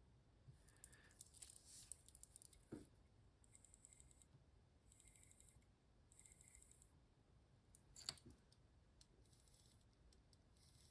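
Faint winding noise of a Hamilton Khaki Field Automatic 38's Powermatic 80-based movement: scattered small clicks, with three short raspy ratcheting stretches in the middle. Not very satisfying, but all right.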